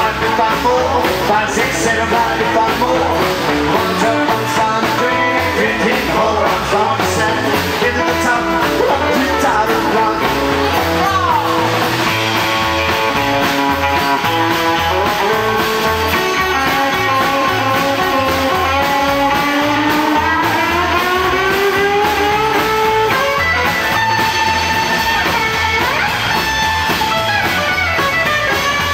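Live band playing rock and roll: electric guitar and acoustic guitar over upright double bass and drums, with a steady beat.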